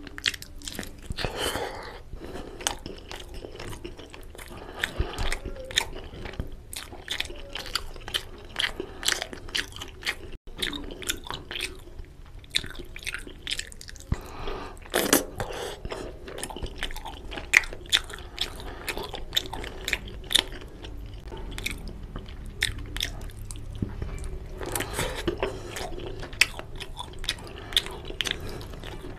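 Close-up eating sounds of a person eating chicken curry and rice by hand: biting meat off chicken drumsticks and chewing, with many quick sharp mouth clicks and smacks throughout.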